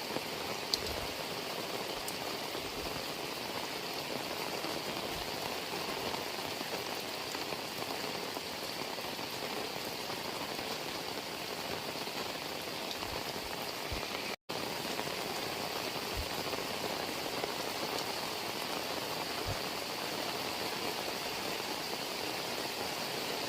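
Heavy rain falling steadily, an even hiss with a few louder drops here and there; the sound cuts out for an instant a little past the middle.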